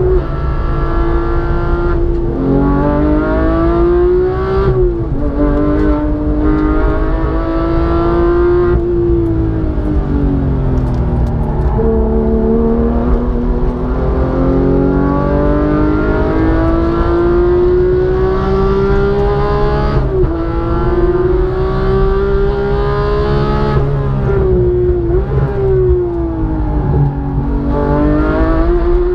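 Porsche 911 GT3's naturally aspirated flat-six at full throttle on track, heard from inside the car. It climbs in pitch and drops sharply at upshifts about 2 and 5 seconds in, falls away under braking, then pulls up again for a long climb with a shift about 20 seconds in. It slows once more before accelerating again near the end.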